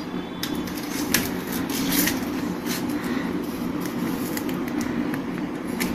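A phone and its USB cable being handled as the cable is plugged in: a handful of short clicks and knocks over a steady low background hum.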